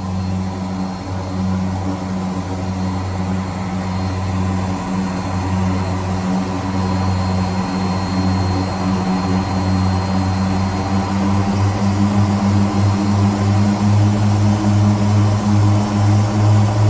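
Garrett TPE331 turboprop engines of an SA227 Metroliner running on the ground, supplying bleed air to pressurize the cabin. The steady drone grows gradually louder, and from about two-thirds in it throbs in a regular pulse.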